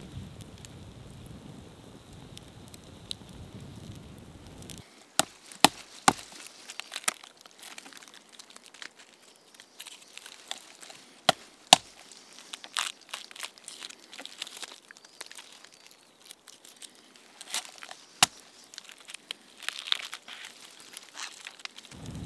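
A blade chopping and prying chaga off a birch trunk: sharp knocks and cracks with crumbly tearing between, in a cluster about five seconds in, two hard strikes near the middle and a few more later. Before that a campfire crackles with a low steady hiss.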